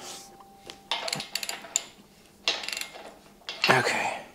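Hand ratchet and socket working a bolt on a steel shop crane: metallic clicking and clinking in three short bursts.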